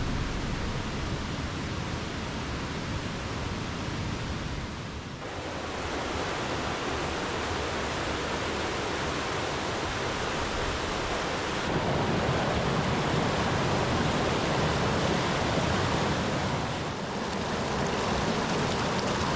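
Rushing water of a rain-swollen mountain stream: a steady, dense rush that dips briefly about five seconds in and again near the end, and gets louder about twelve seconds in.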